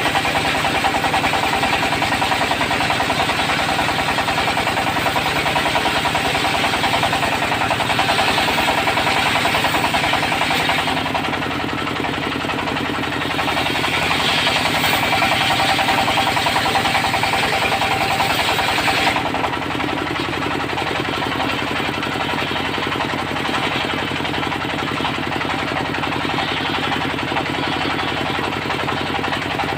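Diesel engine driving a circular sawmill, running steadily with a fast, even chugging and a steady whine over it. The level dips slightly about eleven seconds in and again around nineteen seconds.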